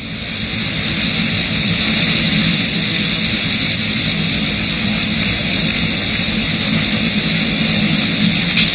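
A lahar, a fast volcanic mudflow of ash-laden water, rushing steadily; the noise swells over the first second and then holds loud.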